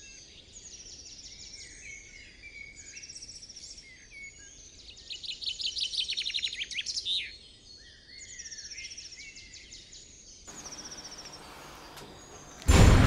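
Birds chirping and singing, with short repeated high phrases and a louder rapid trill lasting about two seconds, about five seconds in. Loud music cuts in abruptly near the end.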